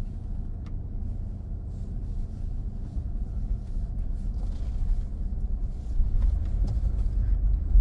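Low, steady rumble of a car heard from inside the cabin, engine and tyres at low speed. It grows louder about six seconds in as the car moves off down the street.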